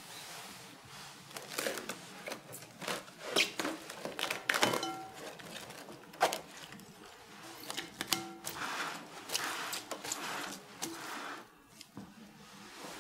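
Plastic cling film being pulled off its roll, torn off and stretched over a glass bowl: a run of irregular crinkles and crackles.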